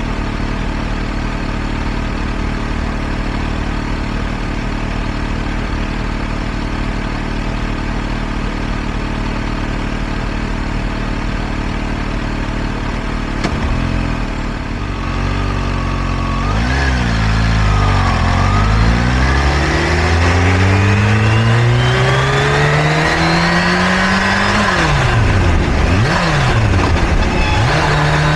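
Engines idling steadily for about the first half. The Kawasaki Ninja H2 SX's supercharged inline-four then pulls away and accelerates hard through the gears, its revs climbing and dropping at each shift.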